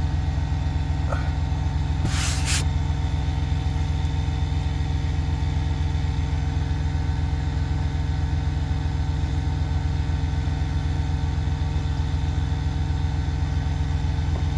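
Truck engine idling steadily with a low, even rumble, and a brief hiss about two seconds in.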